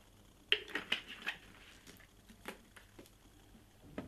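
Drink bottles being handled on a tray: several short clinks and knocks of glass and plastic bottles set down and picked up, the loudest about half a second in.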